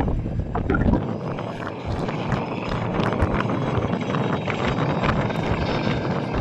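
Westland Sea Lynx twin-turbine helicopter flying a low display pass: a steady rushing rotor and turbine noise broken by many quick sharp crackles. The deep rumble underneath drops away about a second in.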